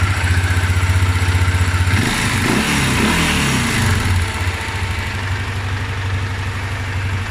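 Honda Transalp 600's V-twin engine idling, with a faint steady whistle over it. About two seconds in, the engine note rises briefly and settles back to idle roughly two seconds later.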